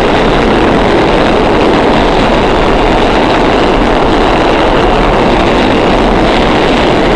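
Steady loud rushing noise of a subway station platform, even and unchanging, with no distinct clatter or passing train standing out.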